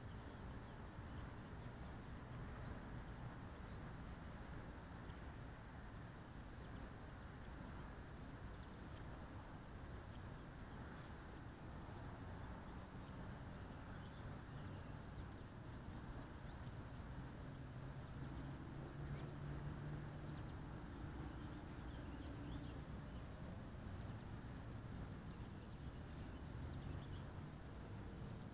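Faint outdoor background noise, with a short high chirp repeating a little under once a second. A faint low hum swells for a few seconds about two-thirds of the way through.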